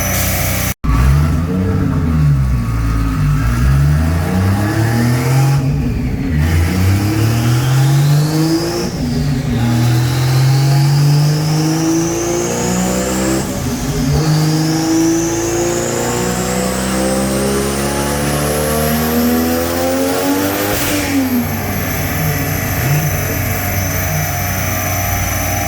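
Toyota 1JZ turbocharged inline-six in a Corolla wagon at full throttle, climbing in revs through three gear shifts before lifting off as the revs fall near the end, with a high whine that rises with the revs.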